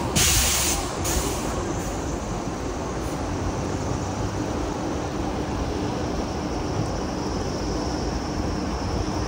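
Steady rush of fast-flowing floodwater pouring across a flooded road, louder for about the first second.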